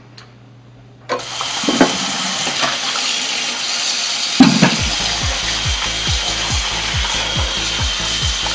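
Kitchen faucet turned on about a second in, tap water running steadily into a steel pot of squid as hands rub it under the stream. A thump comes about halfway through, then background music with a steady low beat joins.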